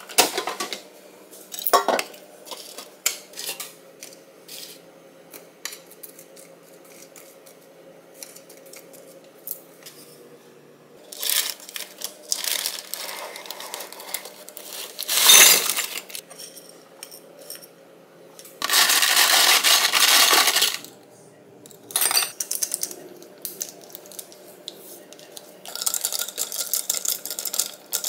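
Kitchen handling sounds: ceramic dishes and chopsticks clicking and clinking as they are set down over a steady low hum that stops about eleven seconds in, then parchment paper rustling as air-fried waffle fries are tipped onto a plate, and near the end ice rattling and clinking as a drink is stirred in a glass mug.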